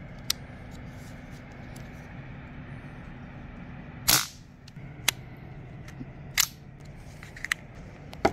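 Sharp clicks and two brief louder bursts of noise, about four and six seconds in, from a Kral Puncher Nish PCP air rifle being handled, over a steady low hum.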